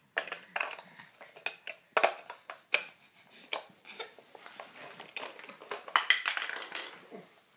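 Hard plastic toy pieces clicking and knocking together and against a wooden floor as a toddler handles them, in irregular taps with a busier run of clatter about six seconds in.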